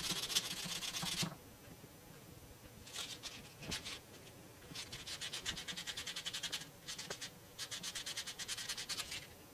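Coin ring's edge being sanded by hand with sandpaper: spells of rapid back-and-forth scratching strokes, four bursts with short pauses between.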